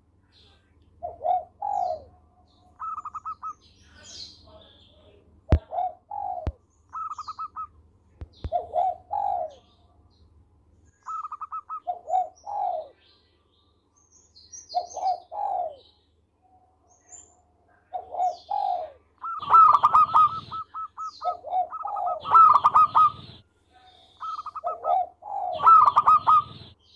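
Zebra dove (perkutut) cooing. It repeats its phrase every few seconds: a quick rolling trill of higher notes, then a pair of lower coos. The calls grow louder and rougher in the second half.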